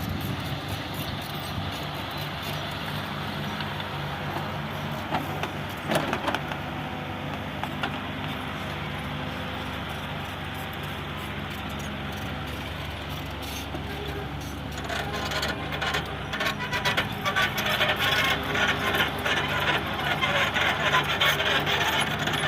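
Excavator's diesel engine running steadily, with a couple of metallic knocks about five to six seconds in. About two-thirds of the way through, a louder, continuous rattling clatter joins in.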